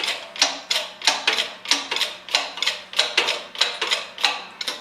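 Keyway cutting tool stroking through a steel gear blank, a sharp metallic cut about three times a second in an even rhythm. It is near the bottom of its feed.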